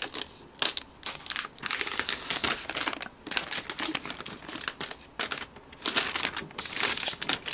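Plastic packaging crinkling and rustling in irregular bursts as a new Mac Mini is unwrapped from its protective wrapping.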